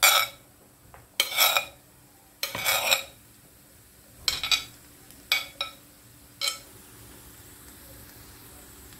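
Spoon scraping chopped vegetables off a plate into a frying pan: about seven short scrapes and clinks in the first seven seconds. A faint steady sizzle from the frying pan runs underneath.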